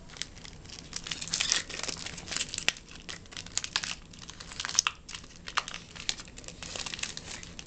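Foil wrapper of a Topps Co-Signers trading-card pack crinkling and tearing as it is pulled open by hand, a stubborn pack that doesn't open easily, in irregular crackles.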